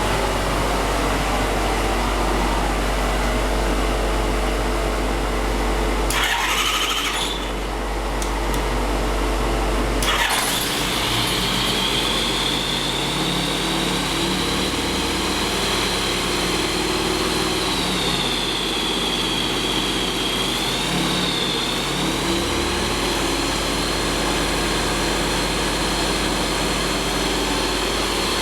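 Rotax 912S flat-four aircraft engine on its first start after an overhaul: a steady noise, then the starter turning it over about six seconds in, and the engine catching about ten seconds in and running steadily with a high whine whose pitch dips briefly a little past the middle.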